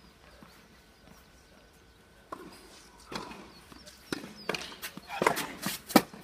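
Tennis ball bouncing on an artificial grass court and being struck by racket strings: a string of sharp knocks starting a couple of seconds in, getting louder, with the loudest hit just before the end.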